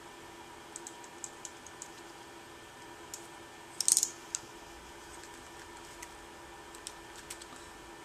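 Light clicks and rattles of ESC wires and their connectors being handled, with a louder cluster of clicks about four seconds in.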